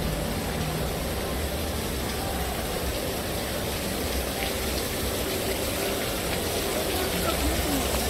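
Steady rush of running water from a water ride's pools and channels, an even hiss with no distinct splashes. Faint voices come in near the end.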